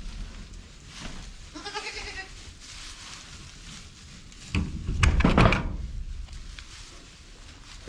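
A farm animal bleats once, a short call with a clear pitch, about two seconds in. About halfway through comes a louder stretch of knocking and rustling.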